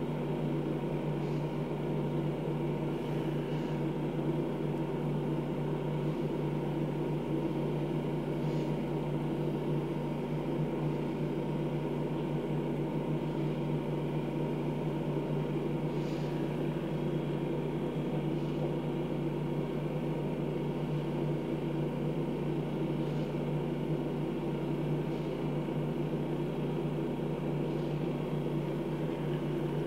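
Hydrofacial machine's vacuum pump running with a steady, even hum while the suction wand is worked over the skin.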